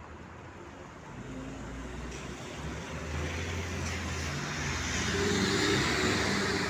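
City bus pulling away from a stop and driving close past: its engine note rises and grows louder as it accelerates, with tyre hiss on the wet road building near the end.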